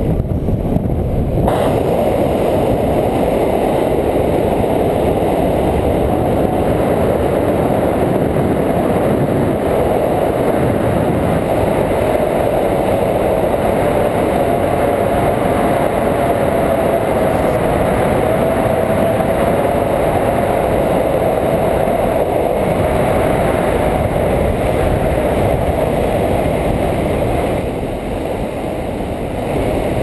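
Steady, loud wind noise from the airflow of a paraglider in flight rushing over the microphone of a pole-held action camera, easing a little near the end.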